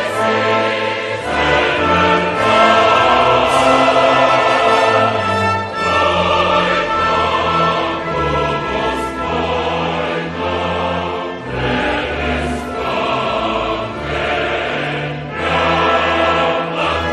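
Choral and orchestral music: a choir singing sustained chords over orchestra and bass notes that change every second or two.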